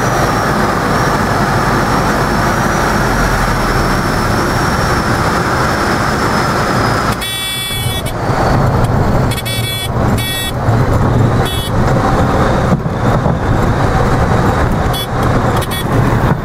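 Light aircraft cabin noise on final approach, engine and airflow, then the stall warning horn sounding in short bursts from about seven seconds in as the nose comes up for the flare and touchdown. A louder, uneven low rumble follows as the wheels roll along the grass runway.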